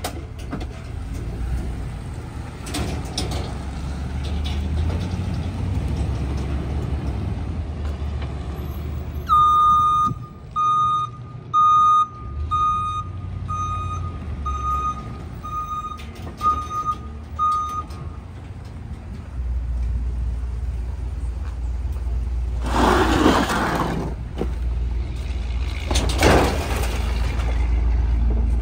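Small Ford split-body garbage truck's engine running as it drives and backs up, its reversing alarm beeping about a dozen times at one steady pitch, a little over once a second. The engine then settles into a heavier steady run, with two loud bursts of hiss near the end.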